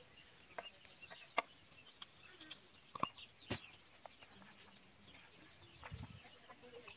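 Faint clucking of chickens and chirping of birds, with a few light clicks and taps as ingredients are moved about on a plate.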